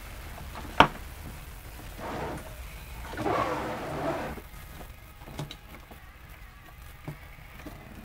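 Aluminium outboard carburetors handled by hand on a workbench: a sharp metal clack about a second in, then a few seconds of rattling and shuffling as the carb bodies are shifted, and a few light clicks near the end.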